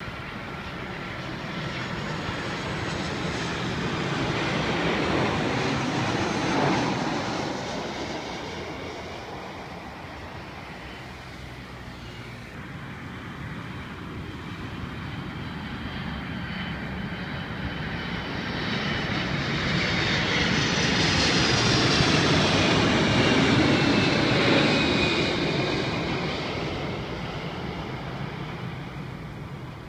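Jet airliner engine noise that swells up and fades away twice, a broad roar with a high whine on top, as aircraft pass near the airport. The whine drops a little in pitch as the second swell fades.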